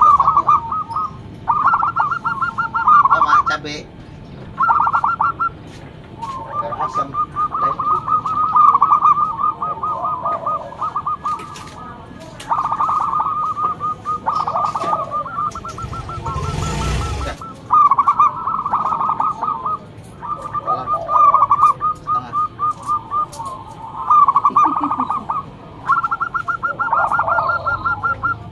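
Zebra dove (perkutut) cooing: repeated phrases of rapid, stuttering coos, one after another with short pauses. A brief rush of noise comes about sixteen seconds in.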